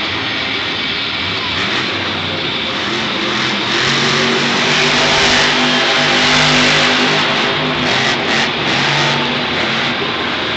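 Monster truck engines revving in a stadium over a steady wash of arena noise. The engines come in strongly about three to four seconds in, are loudest in the middle, and ease off near the end.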